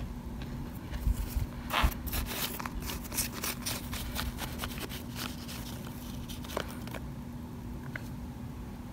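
Plastic spoon digging into a bowl of cornstarch powder and chunks: a run of soft crunches and crackles, densest in the first few seconds, thinning to a few scattered clicks. A low steady hum runs underneath.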